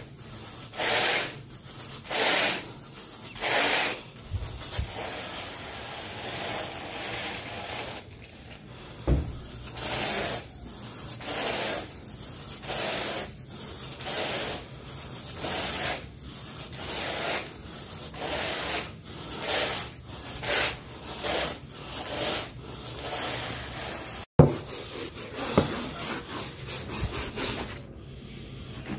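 Carpet grooming brush on a pole dragged back and forth through the carpet pile, a rhythmic scratchy rub with each stroke, the strokes quickening after the first few seconds. Near the end the brushing stops and there is a sharp knock.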